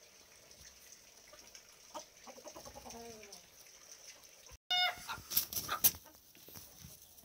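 Chickens mating: a drawn-out, slowly falling chicken call about two seconds in. Later a short squawk and a burst of loud wing-flapping and scuffling as a rooster mounts a hen.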